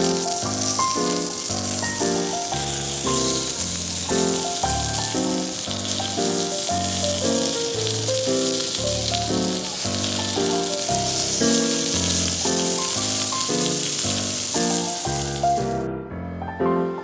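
Food sizzling as it fries in a pan, a steady hiss that cuts off suddenly near the end, under background music with a steady melody of piano-like notes.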